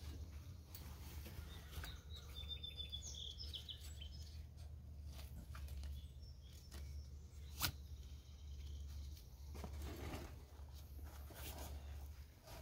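Faint rustling and scraping as a treestand's strap is pulled and cinched around a tree trunk, with one sharp click about eight seconds in. A bird chirps briefly about two to three seconds in, over a steady low rumble.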